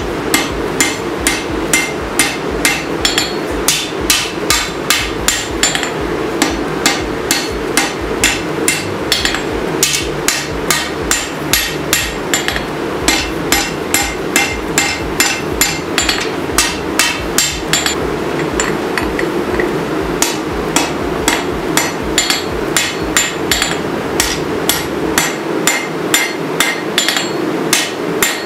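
Hand hammer striking hot 5160 steel on an anvil, forging out a sword blade: a steady rhythm of about two ringing metallic blows a second. A constant low background hum runs underneath.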